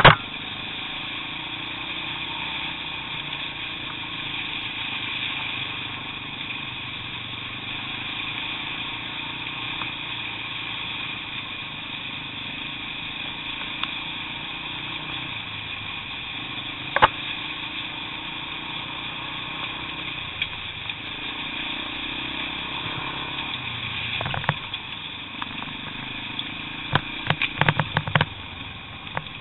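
Trail motorcycle engine running steadily along a rough, wet lane, its pitch stepping up and down a few times. Several sharp knocks come from the bike over stones, with a quick cluster of them near the end.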